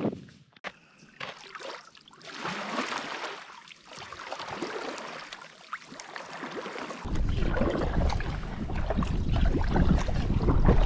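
Kayak paddle strokes splashing and water lapping against the hull. About seven seconds in, a low rumble of wind on the microphone comes in under the water sounds and the level rises.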